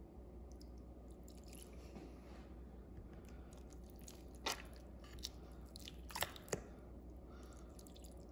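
Raw steak being turned by hand in a glass baking dish of marinade: soft wet squishing, with a few sharp taps about halfway through.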